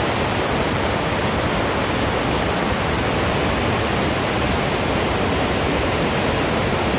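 Steady rush of fast-flowing creek water heading toward a waterfall, a full, even wash of sound.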